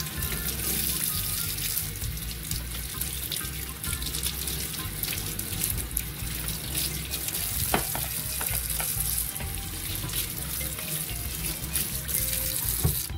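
Kitchen tap running into a stainless steel sink, the water splashing over a peeled yellow yam as it is rinsed by hand. A couple of sharp knocks, one about eight seconds in and one near the end, and the water cuts off at the end.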